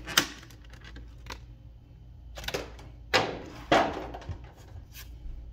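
Clear plastic packaging tray from a trading-card collection box being handled, with sharp plastic clicks and a few short crinkling rustles in the middle.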